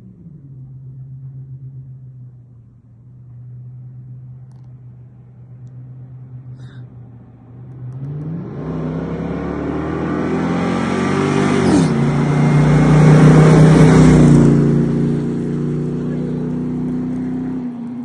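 Hummer H2's rebuilt 6.2-litre LQ9 V8 exhaust idling low, then about eight seconds in accelerating with a rising pitch. Near twelve seconds the pitch drops briefly and climbs again, it is loudest just after, then it settles into a lower, steadier drone.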